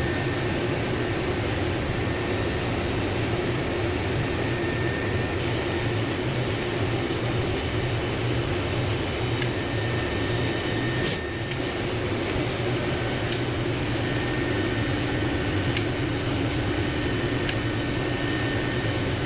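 Steady hum and rush of a running fan. A single sharp click comes about eleven seconds in, with a few faint ticks scattered around it.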